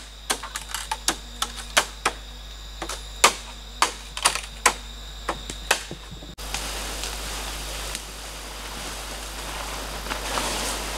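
Bamboo poles knocking sharply against each other in an irregular run of about twenty clicks as a bamboo platform floor is laid and adjusted. About six seconds in it cuts off to a steady forest hiss with faint rustling.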